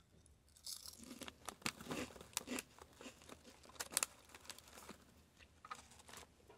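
Foil chip bag crinkling and crackling as it is handled in the hands: a run of sharp, irregular crackles, loudest about four seconds in, dying down near the end.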